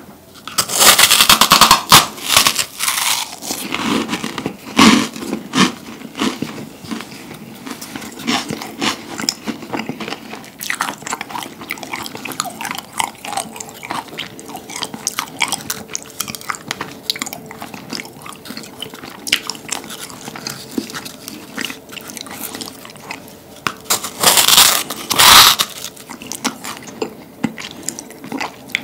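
Close-up biting and chewing of a large meringue cookie. Loud crisp crunches come on the first bites, then a long stretch of softer chewing and crackling, with another loud burst of crunching near the end.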